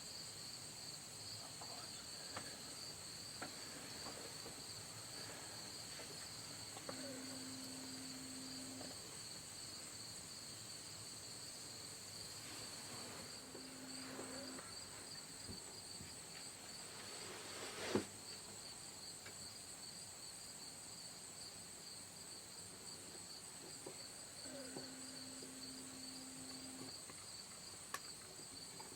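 Insects chirring steadily and faintly in two high, finely pulsing bands, typical of crickets or katydids on a late-summer evening. A single sharp click is heard about two-thirds of the way through, and a faint low hum comes and goes three times.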